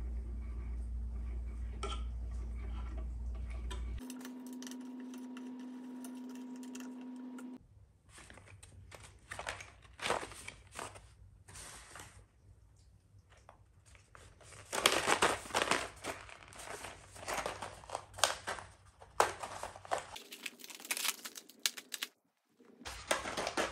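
Plastic packaging crinkling and rustling in irregular bursts as a blister pack of chair bolts and a packing sheet are handled, after a few seconds of steady low hum.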